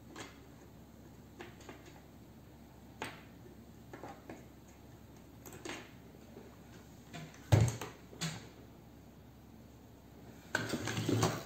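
Scattered clicks and taps of tools and small parts being handled and set down on a wooden workbench, with one louder knock about seven and a half seconds in and a short run of clattering near the end.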